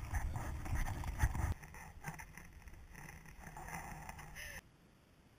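Wind buffeting and handling rumble on a GoPro action camera's microphone while hikers walk in snow, with irregular knocks of footsteps. About a second and a half in it gives way to fainter, irregular crunching, which cuts off abruptly a second before the end.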